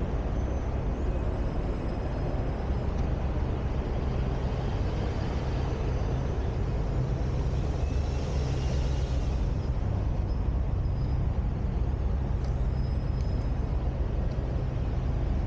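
Steady road traffic on a city street: a continuous low rumble of passing cars, with a brief hiss about eight seconds in.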